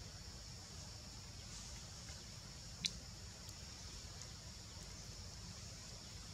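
Insects droning steadily at a high pitch over a low rumble, with a single sharp click about three seconds in.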